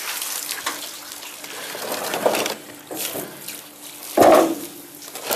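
Water splashing and trickling over a faint steady hum, with a short loud sound about four seconds in.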